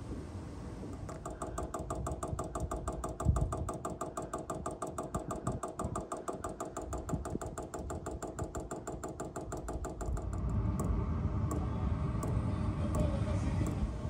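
Chinese diesel heater's electromagnetic fuel pump ticking rapidly and evenly over a steady hum, the pump noise that carries through the van. One louder knock comes about three seconds in, and about ten seconds in the ticking stops, leaving a low rumble.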